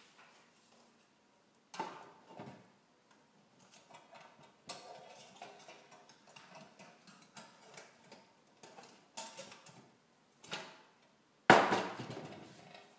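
Thin tin cans clinking, knocking and scraping against each other as a tin-can chimney is handled and fitted onto the top of an olive oil can stove. The taps come in scattered light clicks, with one loud metallic knock and a short ring near the end.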